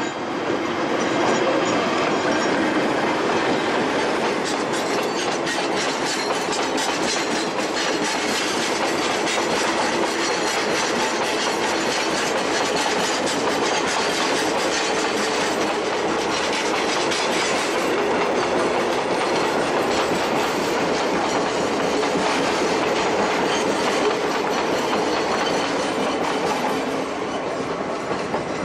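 Long freight train of Chichibu Railway Woki 100 ore hopper wagons rolling past behind a Deki electric locomotive, the wheels clicking steadily over the rail joints. The sound tails off near the end as the last wagons go by.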